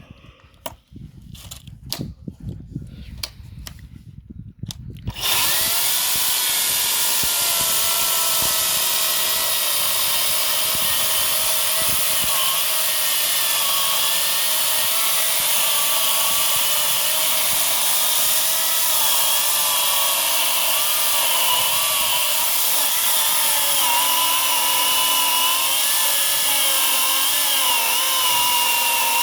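Several sharp clicks, then about five seconds in a 40-volt brushless cordless chainsaw starts suddenly and runs steadily: a loud, even whine from its electric motor and chain, wavering slightly in pitch.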